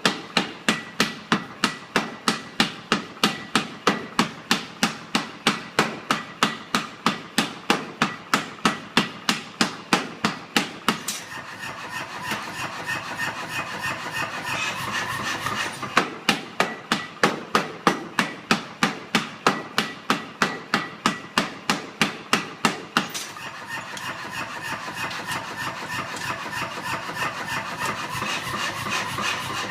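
Power hammer striking a 2-inch round bar end-on to upset it: a fast, even run of blows at about three to four a second, in two runs of roughly eleven and seven seconds. A steady running noise fills the pauses between the runs.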